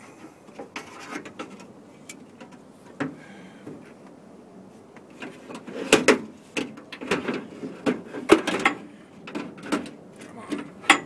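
Metal window regulator rail of a 2003 Honda Odyssey passenger door scraping, clanking and rattling against the door's inner sheet metal as it is worked out through the access opening. The knocks and scrapes come irregularly, busiest in the middle, with a sharp knock near the end.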